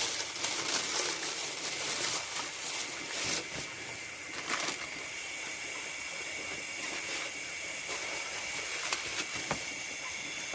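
Chorus of nocturnal rice field insects, a steady high-pitched trilling over a hiss, with a few faint clicks and knocks in between.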